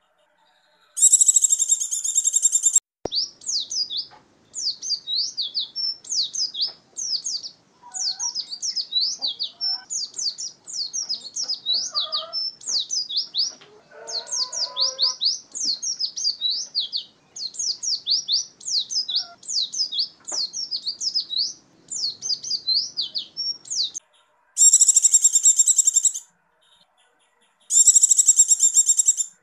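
Pleci (white-eye) singing: a dense, high buzzy trill lasting about two seconds, then a long run of rapid, high up-and-down chirping notes. Two more short bursts of the dense trill come near the end.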